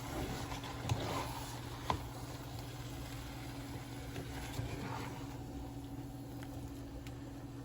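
A spoon stirring chicken and vegetables in a sizzling pan, with two sharp knocks against the pan about one and two seconds in, over a steady low hum. The stirring noise thins out after about five seconds.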